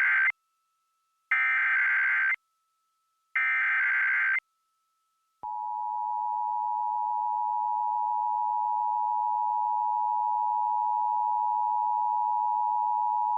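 Emergency Alert System header: the tail of one burst of warbling SAME digital data tones, then two more bursts of about a second each, a second apart. About five seconds in, the steady two-tone EAS attention signal starts and holds.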